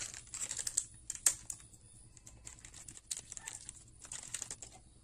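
Hands handling a paper packet of new piston rings: a run of light crinkles and small clicks, densest in the first second and a half with the sharpest about a second in, then sparser.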